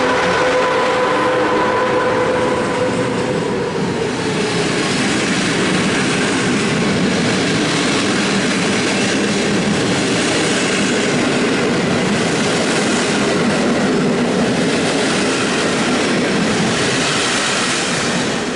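A passenger train hauled by a PKP Intercity EP07 electric locomotive passes close by. The locomotive's steady whine fades out in the first few seconds, then the loud, even rumble of the coaches' wheels on the rails continues until the last coach clears, near the end.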